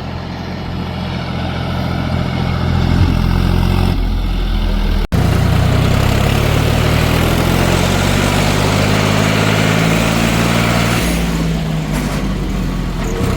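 Tractor diesel engine running steadily, the John Deere 5310's three-cylinder. About five seconds in the sound breaks off for an instant and resumes with the engine pitch shifting slightly.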